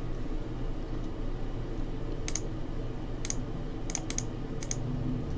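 Computer mouse clicking about six times, short sharp clicks spaced irregularly and mostly in the second half, over a low steady hum.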